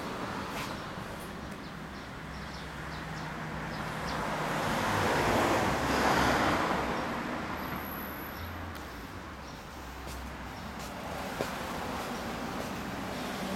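Road traffic: a vehicle passes on the street, swelling to loudest about six seconds in and fading away, over a steady low engine hum.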